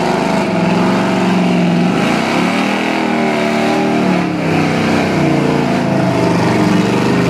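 Engine of a lifted mud-bogging SUV on tall tractor tyres, revving up and down repeatedly as it churns through deep mud.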